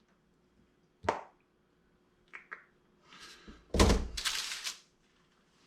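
Handling knocks: a sharp knock about a second in, then two faint clicks. Near four seconds in comes a loud thunk followed by a short rustle, as the leather pillion pad is set onto the motorcycle's rear fender.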